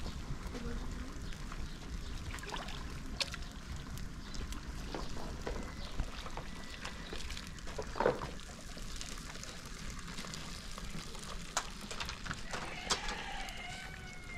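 Outdoor cooking sounds: short clinks and knocks of a metal ladle against pots and plastic basins and water splashing and pouring, over a steady low wind rumble. The loudest knock comes about halfway through, and a short wavering voice-like call comes near the end.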